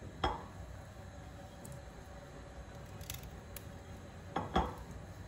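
Broccoli being handled and cut in a ceramic bowl: a light knock just after the start, then a small knife cutting through the broccoli stalk, with a couple of short crunches about four and a half seconds in.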